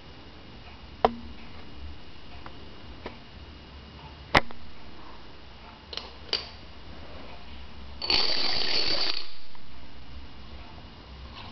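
A double spiral of dominoes toppling in a chain on a wooden floor: a dense clatter of about a second, some seconds after a few sharp single clicks.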